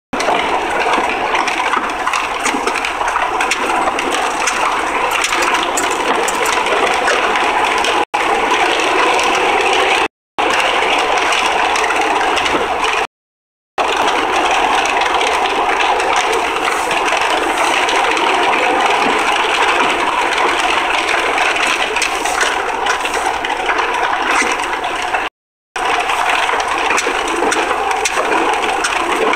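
Steady rushing road and wind noise heard inside the cabin of a 2003 Honda Accord with a 3.0 L V6 on the move, with the engine running beneath it. The sound cuts out completely for a moment several times, about eight, ten, thirteen and twenty-five seconds in.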